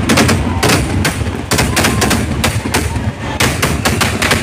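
Fireworks going off close by: a rapid, irregular string of loud bangs, several a second at times.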